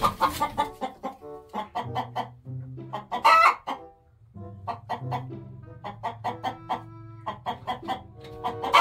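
Chickens clucking in a rapid run of short calls, with one loud call about three seconds in and another near the end, over background music.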